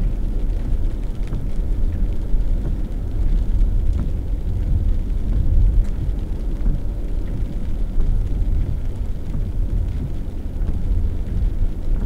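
Steady low rumble of road and engine noise inside a vehicle cruising at about 40 mph.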